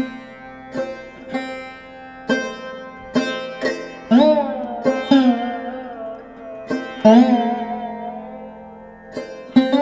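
Background music: a plucked string instrument playing single notes, some bent upward in pitch, over a steady drone.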